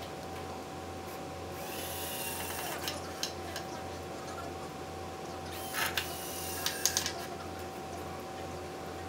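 Milwaukee cordless drill/driver driving screws into a 2x4 frame corner in two short bursts, the first about two seconds long and the second shorter about six seconds in, with the screw grinding into the wood. Sharp clicks and knocks of the tool being handled follow each burst, over a steady low hum.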